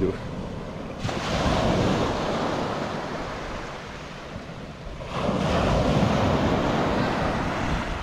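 Small sea waves breaking and washing up the beach, with a surge about a second in and another about five seconds in.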